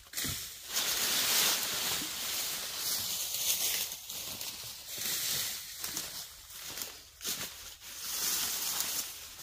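Dry leaves rustling and crackling as leafy branches are dragged and tossed through deep leaf litter, in several loud swells of a second or two.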